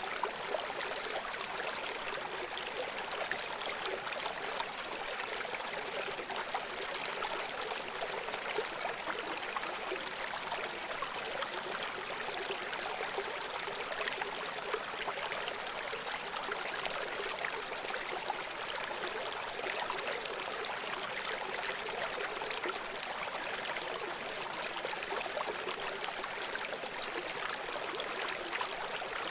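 Running stream: water flowing and splashing over stones with a steady, fine bubbling and trickling.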